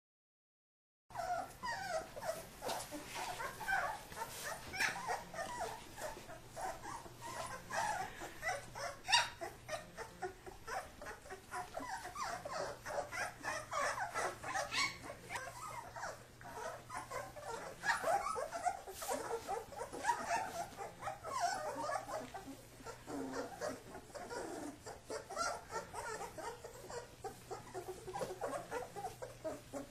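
Kuvasz puppies play-fighting, with a busy run of short, high-pitched play growls, whines and yips and scattered clicks and knocks. The sound starts about a second in.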